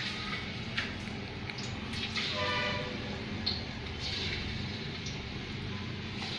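Steady rumbling kitchen background noise, with a few light clicks and a brief ringing tone about two and a half seconds in.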